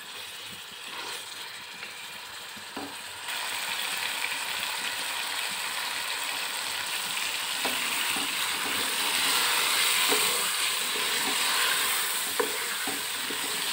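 Chicken pieces frying on high flame in a thick tomato-and-spice masala in a metal pot, sizzling steadily, with a few light scrapes and knocks of a wooden spatula stirring. The sizzle gets louder about three seconds in. This is the bhuna stage, frying the chicken in the masala until the tomatoes melt down.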